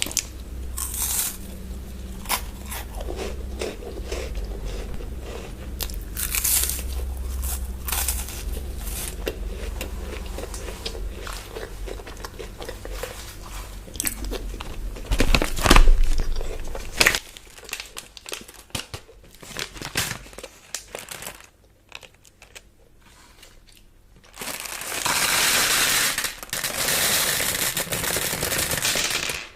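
Close-miked crunching bites and chewing of a crisp chocolate bar, loud and busy for the first half, then a few scattered crunches. Near the end, a loud, steady crinkling rustle of a chocolate wrapper being handled.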